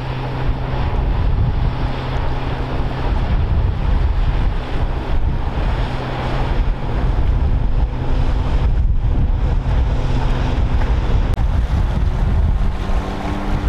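Strong wind buffeting the microphone over the sea's wash, with a steady low engine hum from motor escort boats running at speed that fades in and out. Near the end a different, higher engine tone sets in.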